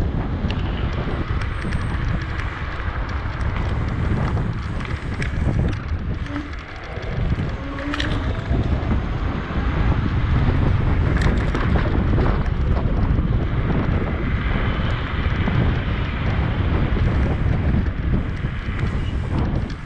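Wind buffeting the microphone during a bicycle ride, a loud low rumble with a few sharp clicks and rattles.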